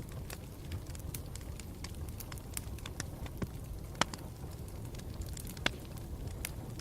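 Campfire crackling: a steady low rumble of burning wood with sharp, irregular pops and snaps, the loudest about four seconds in and again near the end.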